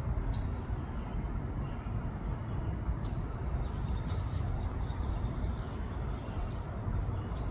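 Small songbirds giving short, high chirps every second or so over a steady low rumble.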